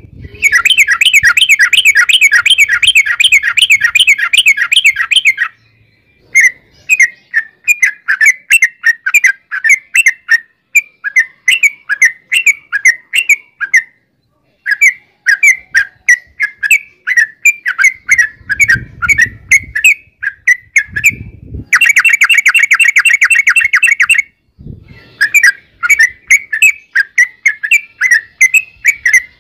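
Yellow-vented bulbul (trucukan) singing loudly: two long, very fast rolling trills, one at the start and one near the end. Between them it sings runs of rapid, repeated bubbly chirping phrases, with short pauses.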